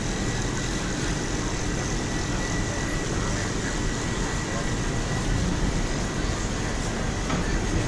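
Steady road-vehicle traffic noise: a constant low rumble with a hiss above it and no sudden events.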